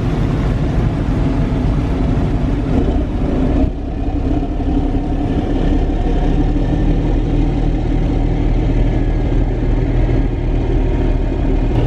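Hydrofoil ferry's diesel engines running with a steady low rumble as it manoeuvres off the quay, propeller wash churning the water; the level dips briefly about four seconds in.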